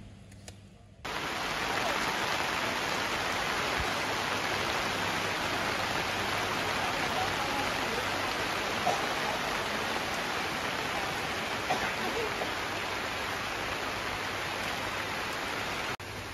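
Steady rain: an even hiss that starts suddenly about a second in and cuts off just before the end.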